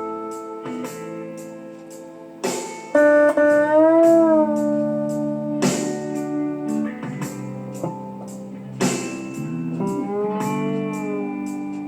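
Lap steel guitar played with a slide: chords picked about every three seconds and left to ring, with notes gliding and wavering in pitch under the bar.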